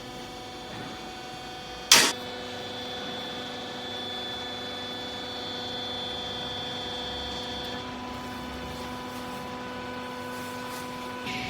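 Hydraulic baling press running with a steady electric hum, with one sharp clack about two seconds in.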